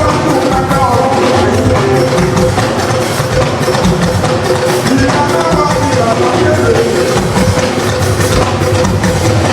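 Live music with a drum kit keeping a steady beat under a melody.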